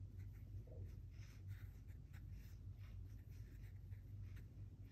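Faint, irregular scratchy dabs of a flat watercolor brush on watercolor paper as paint is laid on in short strokes, over a low steady hum.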